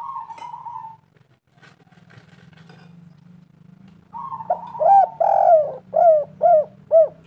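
Spotted dove (tekukur) cooing. A single short coo comes first. About four seconds in comes a longer phrase: a held note, then a run of about five loud, arched coos.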